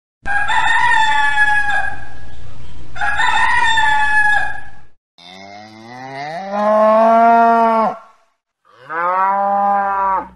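A rooster crowing twice, each crow about two seconds long, followed by a cow mooing twice: a long moo that rises in pitch and holds, then a shorter one.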